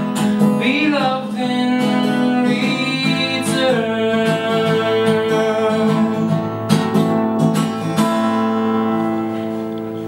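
Acoustic guitar being strummed and picked as a song's closing passage, with a final chord struck about eight seconds in and left ringing as it slowly fades.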